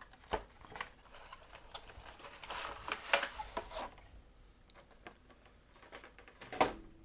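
Cardboard webcam box being opened by hand: the sleeve sliding off the inner tray with scraping rustles in the middle, scattered light taps and clicks, and a sharper knock near the end.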